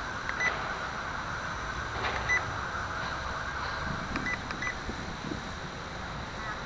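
A few short, high beeps, mostly in pairs a couple of seconds apart, from the quadcopter's radio transmitter as its trim is adjusted during a hover. Behind them is a steady rushing background of wind and the hovering quadcopter.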